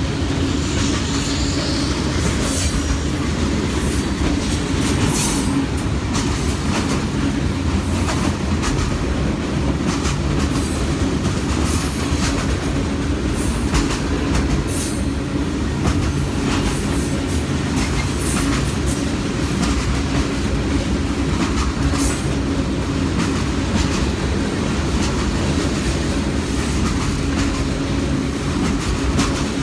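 Freight train cars rolling past steadily: a continuous rumble of wheels on rail with repeated clicks over the rail joints and brief, high wheel squeals.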